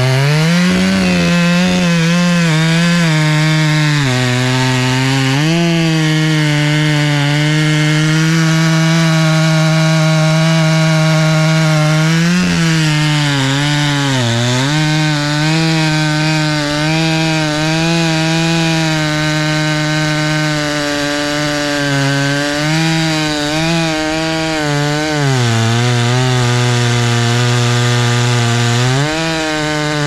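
Large Stihl Magnum chainsaw running at full throttle as it cuts through a big maple log. The engine pitch sags several times as the chain bears into the cut, longest about twenty-five seconds in, and picks back up each time.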